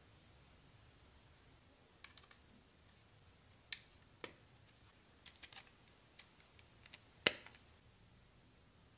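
Plastic building bricks clicking as they are handled and pressed onto a model: scattered sharp clicks, the loudest about seven seconds in.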